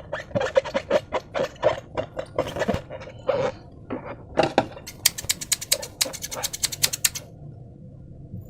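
Slime being squeezed and worked by hand, squelching with many small crackling clicks and pops. A fast run of sharp clicks comes about five seconds in, and it goes quieter near the end.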